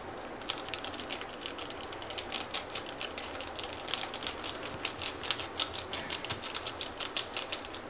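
Paper spice sachet being tapped and shaken as masala powder sprinkles out of it, a rapid irregular crackle of clicks, several a second.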